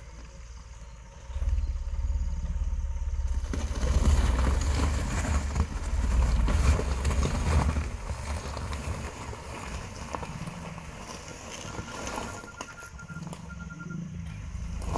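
Tata Nexon SUV driving over a rough, rocky track: the engine runs under load, rising about a second in and loudest in the middle, with many small knocks and crackles from the tyres over stones.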